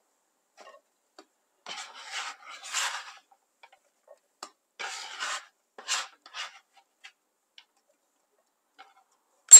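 Hands sweeping and brushing diced zucchini cubes across a wooden cutting board: several short scraping swishes with a few light ticks of cubes, then a sharp knock right at the end.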